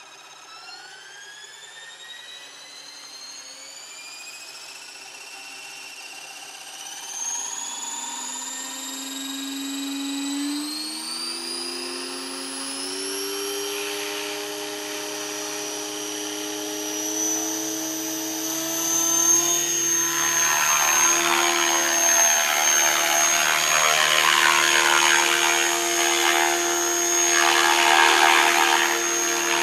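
Radio-controlled model helicopter spooling up: a whine that climbs steadily in pitch and grows louder for about twenty seconds, then holds at a steady high tone. The louder rotor noise of the helicopter in flight comes in over it after the lift-off.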